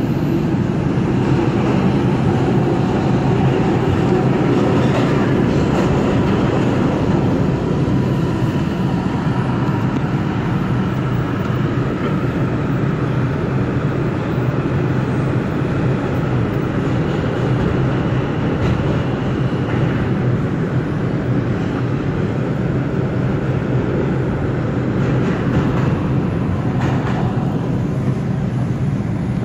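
New York City Subway 4 train running at speed through a tunnel, heard from inside the car as a steady, loud rumble of wheels on rail and running gear.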